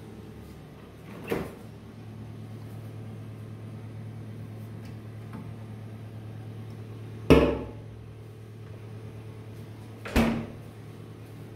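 Three door thumps over a steady low kitchen hum: a lighter one about a second in, the loudest about seven seconds in as the fridge door is shut after a can is taken out, and another near ten seconds.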